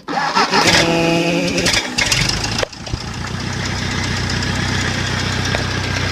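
Ford 600 tractor's four-cylinder gasoline engine cranked by jumping its starter from a 12-volt battery, catching at once and rising in pitch as it picks up speed. About two and a half seconds in the sound drops suddenly, and the engine settles into a steady idle.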